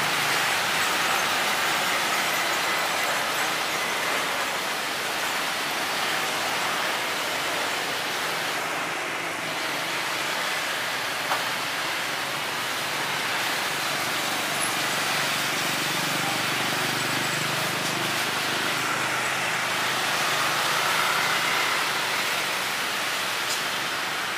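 Jet engines of a Boeing 737 Next Generation airliner landing and rolling out: a steady rushing roar that swells gently without clear single events.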